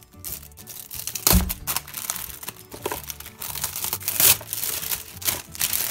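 Shiny blue gift wrap crinkling and tearing as it is pulled open by hand, with irregular crackling and a few loud sharp rips, the loudest about a second in and about four seconds in.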